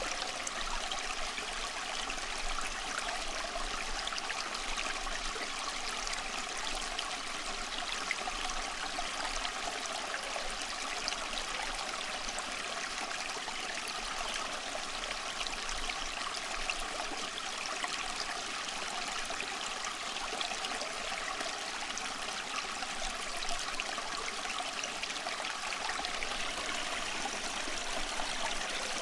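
Steady running water, like a flowing stream, with an even rushing and trickling texture that does not change.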